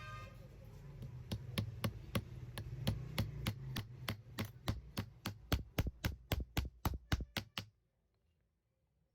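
Hammer blows on metal in a steady rhythm, about three a second, over a low hum; the hammering stops abruptly near the end.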